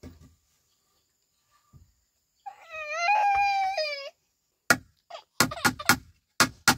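An infant cries once for about a second and a half. Then a hammer strikes a wooden rail in a quick run of blows, about three or four a second.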